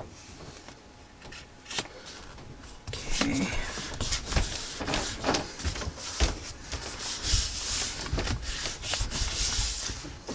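Paper being handled and rubbed against paper and the desk: a single click, then from about three seconds in, a long run of irregular rustling and scraping strokes.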